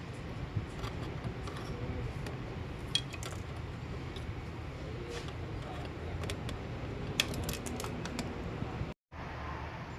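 Scattered light clicks and clinks of small hard objects being handled, over a steady low rumble.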